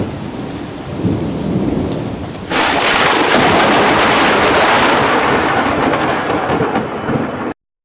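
Thunderstorm: rain with rumbling thunder. About two and a half seconds in, the storm abruptly grows much louder and hissier. It stays that loud for several seconds, then cuts off suddenly near the end.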